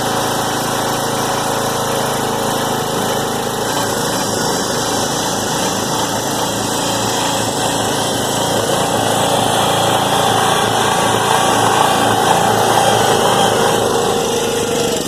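Small gasoline engine driving the baler's hydraulic pump, running steadily, then cutting out right at the end as it runs out of gas.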